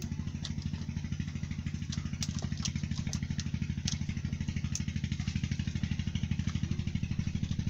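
A small engine running steadily at idle with a fast, even pulse, about ten beats a second. Several sharp clicks or taps sound over it in the first five seconds.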